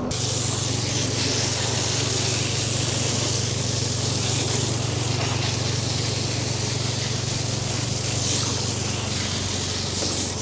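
High-pressure washer spraying water: a steady, loud hiss over a constant low hum.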